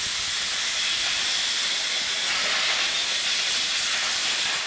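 Compressed air from a blow gun hissing steadily as dirt is blown off a Can-Am Maverick X3 clutch part, cutting off near the end.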